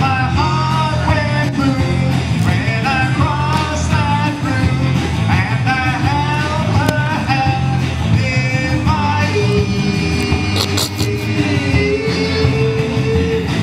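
Loud rock music with a singer and guitar, the voice wavering over a steady low backing; a long note is held near the end.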